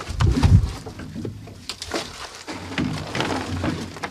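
Building-site clatter of buckets of concrete being handled and passed up a block wall into wooden formwork: irregular knocks and scrapes, loudest just after the start.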